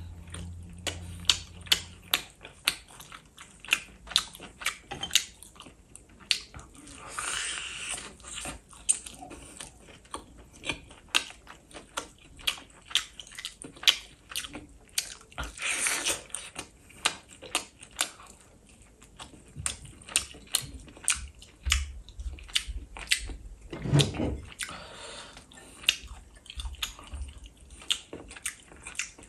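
Close-up chewing of a spiced chicken drumstick: bites, wet chewing and many sharp mouth clicks and lip smacks in an uneven rhythm.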